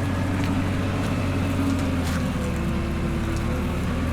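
Forklift engine running steadily while the forks are positioned, with a faint tone that shifts about halfway through.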